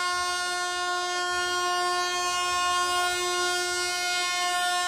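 Air horn of a TCDD E68000 electric locomotive sounding one long, steady single-note blast as the train pulls into the station.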